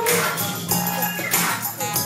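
Instrumental accompaniment of an upbeat pop song during a break between sung lines, with a steady beat of percussion strikes over a bass line.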